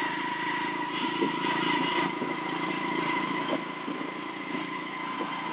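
Motorcycle engine of a motorised becak (motorcycle-sidecar rickshaw) running steadily while riding along, heard from on board, with a steady high whine underneath.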